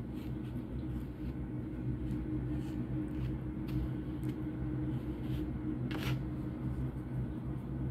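Dry breadcrumbs rustling and scraping as a chicken drumstick is pressed and turned in them by hand, in short strokes, the clearest about six seconds in, over a steady low hum.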